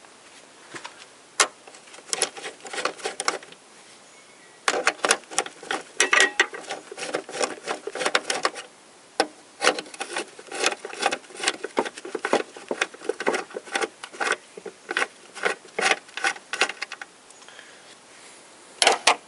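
Hand socket ratchet clicking in rapid runs, with short pauses between them, as a 10 mm mounting bolt of the windshield wiper linkage pivot is unscrewed.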